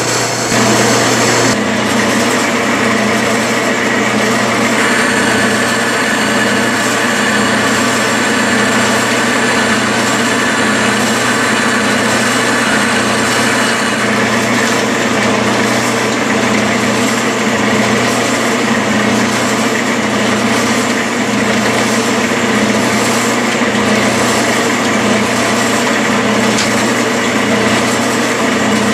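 Metal lathe running under power, its motor and spindle gearing humming steadily, while a single-point tool cuts an internal thread in a chuck backing plate.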